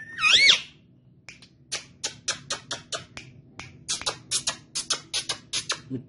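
Indian ringneck parakeet giving one short gliding whistle, then a long run of sharp clicks, about four a second.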